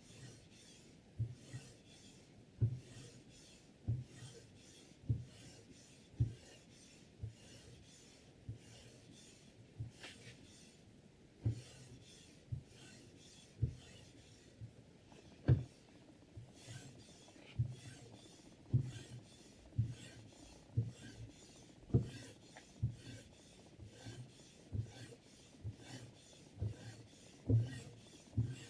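Sharpening stone on a guided knife sharpener stroked along a 10Cr15CoMoV steel chef's knife blade, rasping about once a second with a short low knock at each stroke.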